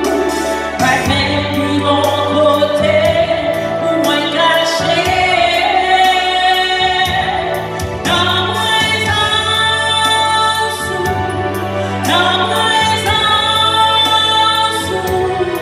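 A woman singing a gospel solo into a microphone, holding long notes over instrumental accompaniment whose low bass notes change every few seconds.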